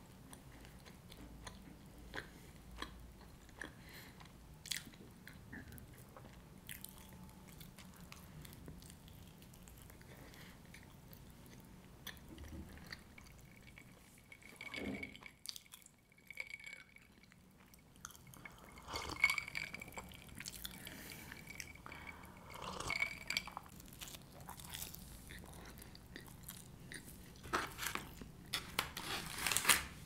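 A person biting and chewing pizza close to the microphone, with moist chewing and crunches, in a run of short clicks that turns louder in the second half.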